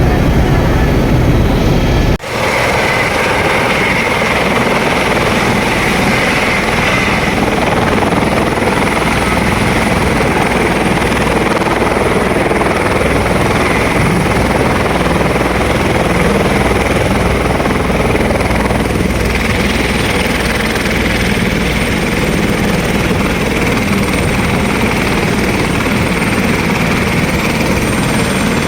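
Helicopter running with a steady, loud rotor and engine noise and a faint high whistle. The sound breaks off sharply about two seconds in, then the same steady noise carries on.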